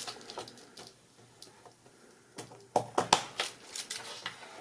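A quick run of sharp plastic clicks and knocks as the ATX connector and power-supply tester board are handled and plugged together, thickest in the second half.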